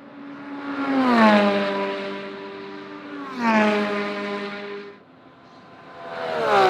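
GT3 race cars passing at full speed, each engine note dropping sharply in pitch as it goes by: two cars pass, and a third comes past near the end.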